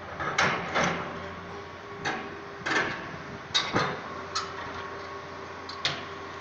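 A series of sharp, short knocks at irregular intervals, about nine in all, over a faint steady hum.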